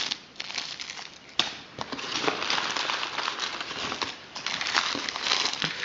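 Clear plastic bag crinkling and rustling as it is handled, with small clicks and one sharper click about a second and a half in.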